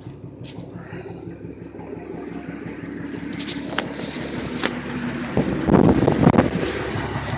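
Ford pickup's engine idling steadily, with a loud rustling, scraping burst about six seconds in, as of brush brushing against the microphone.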